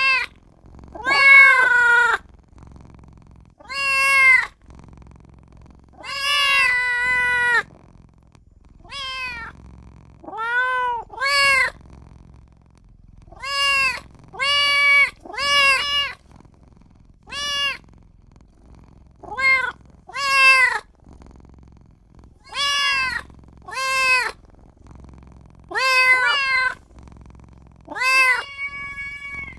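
Young kitten meowing over and over, calling for its mother or owner, about twenty calls that each rise and fall in pitch. Most calls are short, and one around six seconds in is drawn out.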